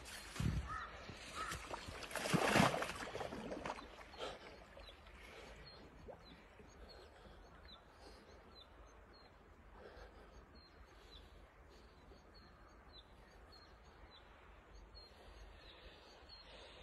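Icy lake water splashing and broken ice chunks knocking as a man wades in and lowers himself among them, loudest about two to three seconds in. After that, a low steady outdoor hush with faint high ticks about twice a second.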